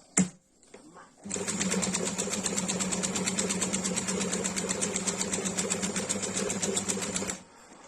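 A sharp click, then a Singer 2630C sewing machine running steadily at speed for about six seconds with a fast, even stitching rhythm, stopping suddenly near the end.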